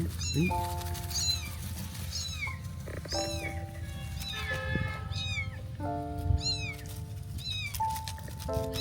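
Kitten meowing over and over: a quick run of short, high-pitched meows, each rising then falling, roughly one a second. Background music plays underneath.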